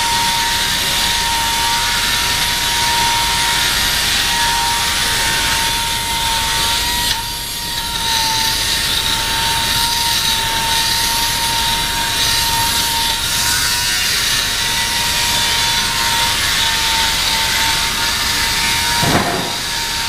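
Mannesmann Demag GL 16000 H pneumatic straight grinder, with its long extension, grinding a metal casting. It gives a steady high whine from the air motor over a hissing grinding noise, wavering slightly as the bit bites, and eases briefly about seven seconds in.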